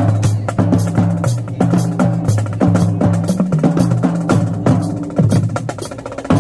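Marching drumline playing a cadence: rapid snare drum strokes over tuned bass drums that step between low pitched notes.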